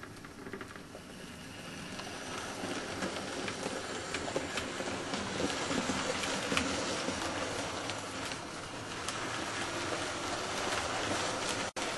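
00 gauge model train of maroon coaches running along the track: a steady rush of wheels on rail with a patter of small clicks, louder from about two seconds in. The sound cuts out for an instant near the end.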